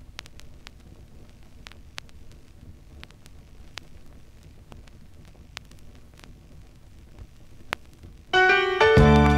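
Vinyl record surface noise from the run-in groove: a low rumble with scattered clicks and pops. Near the end the song's intro starts abruptly and much louder.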